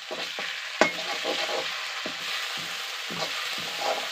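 Onions, garlic, chillies and ground masala sizzling in hot oil in a metal kadai, with a metal ladle stirring and scraping the pan and one sharp clink of ladle on pan about a second in.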